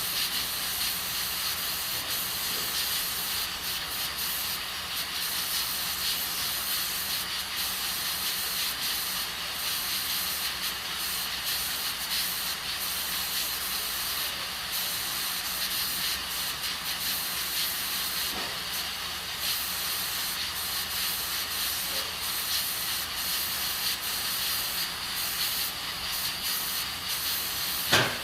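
Aluminium pressure cooker cooking beans, steam escaping from its valve in a steady hiss. A single short click near the end.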